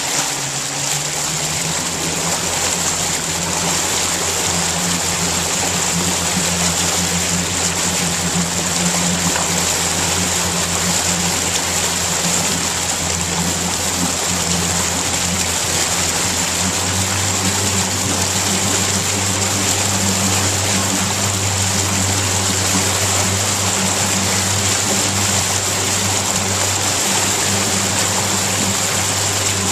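Motorboat engine running steadily at low speed while towing an inflatable tube, over a constant rush of water from the hull and wake. The engine's low hum shifts slightly a little past halfway.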